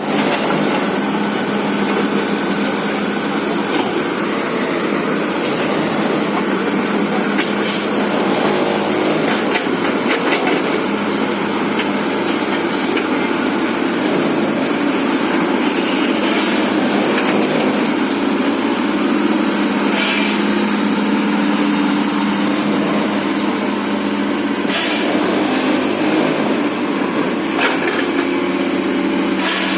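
Komatsu PC210 hydraulic excavator's diesel engine running steadily, with a few sharp knocks or clanks now and then.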